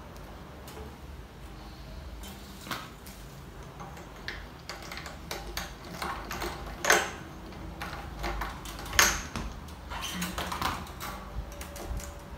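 Scattered clicks and taps of hands threading and winding a new string at the tuning pegs of a 12-string acoustic guitar's headstock, with two sharper clicks about seven and nine seconds in.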